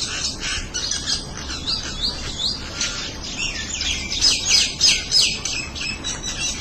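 A small flock of mynas chattering, with rapid overlapping chirps and squawks that are busiest in the middle.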